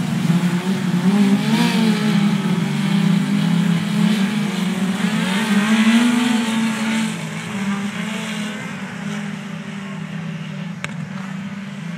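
Compact speedcars racing around a speedway oval, their engines rising and falling in pitch as they accelerate and lift for the turns. The engine noise is loud at first and eases off somewhat after about seven seconds.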